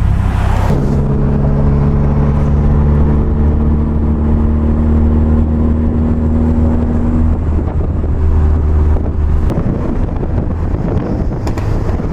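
Stage 2 tuned 2020 Subaru WRX with a Grimmspeed J-pipe and intake, its turbocharged 2.0 L flat-four running at a steady engine speed. A short rushing sound comes right at the start, and the engine note changes and drops away about three-quarters of the way in.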